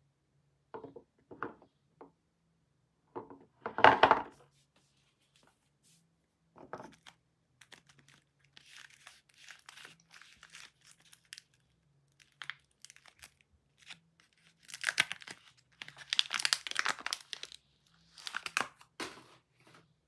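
Paper wrapper of a bar of soap being crinkled and torn open by hand, in several bursts that are loudest in the last few seconds. A few dull knocks come before it, the loudest about four seconds in.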